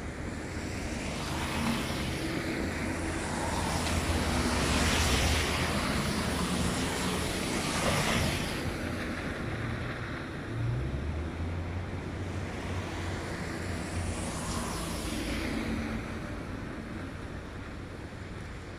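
Gusty wind buffeting the microphone with a deep rumble and a hiss. It builds up to its loudest in the first half, eases off, then swells again later.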